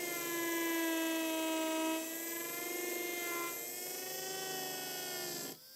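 Surgical implant motor spinning a 3.6 mm implant drill in a contra-angle handpiece: a steady whine that dips slightly in pitch about two seconds in and cuts off near the end.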